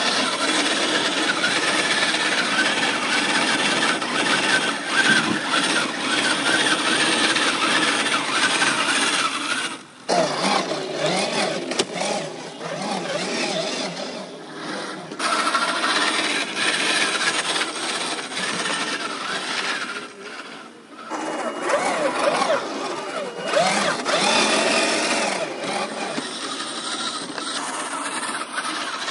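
1/10-scale RC crawler trucks, an MST CFX-W Toyota Land Cruiser 70 and an Axial SCX10 II Jeep Cherokee, climbing a sandy hill. Their electric motors and gear drivetrains whine, rising and falling in pitch with the throttle. The sound drops out abruptly twice, about ten seconds in and again about twenty seconds in.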